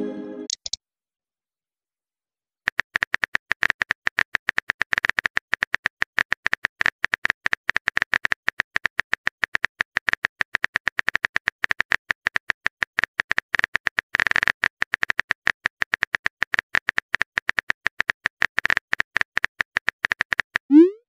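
Rapid clicks of a phone's on-screen keyboard as a message is typed, many a second, starting about three seconds in and running on to near the end. A short rising blip sounds just at the end.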